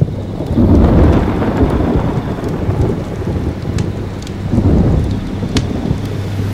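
Thunder rumbling in two heavy rolls, the first about half a second in and a second one near five seconds, over the steady hiss of rain.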